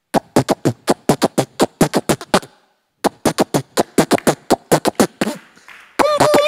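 Beatboxing: a man's mouth percussion into a handheld microphone, his hand cupped around it, making a fast run of drum-like hits, about six a second, in his take on traditional tribal music beats. The beat breaks off briefly about two and a half seconds in and starts again. Near the end a sustained, wavering pitched tone joins the beat.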